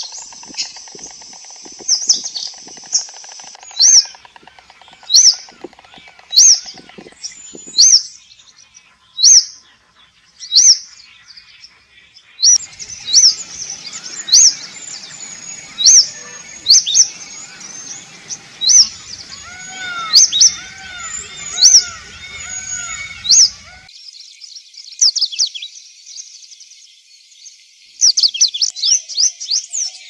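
Songbirds calling: one bird repeats a loud, high chirp about every second and a half. About halfway in, a denser twittering chorus and some lower whistled notes join it, and near the end comes a quick run of chirps.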